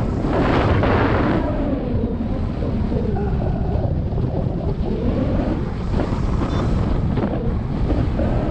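Wind blowing hard across the microphone, a loud steady rumble with gusty swells.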